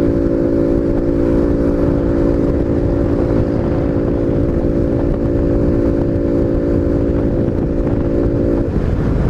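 Honda Biz 125's single-cylinder four-stroke engine, breathing through a sport air filter, holds a steady high cruising speed under heavy wind rush on the microphone. Near the end the steady engine note breaks off and changes.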